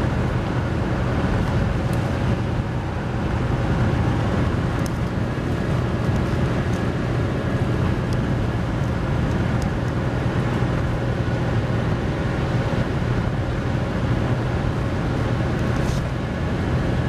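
Steady road and engine drone heard inside a moving vehicle's cabin at highway speed, with a constant low hum under the tyre noise.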